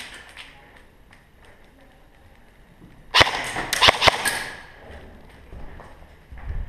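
Airsoft guns firing: a quick string of four or five sharp cracks about three seconds in, lasting a little over a second.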